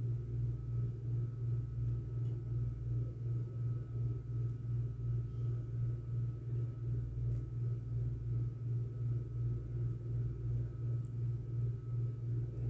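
A steady low hum, swelling and fading evenly several times a second, with a faint thin whine above it.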